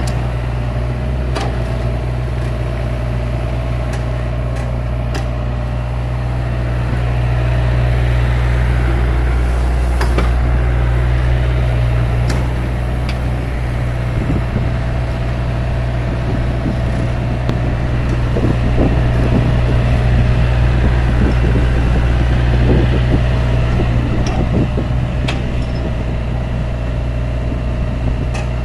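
Tatsuo excavator's diesel engine running steadily while it digs soil, growing louder for several seconds at a time as the arm and bucket work, with a few sharp clicks.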